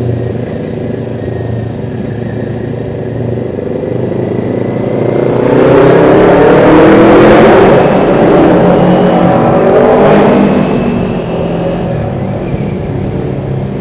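Kawasaki Ninja 400 parallel-twin engine through an Akrapovic slip-on exhaust, revving up under acceleration about four seconds in, loudest from about six to ten seconds, then easing off.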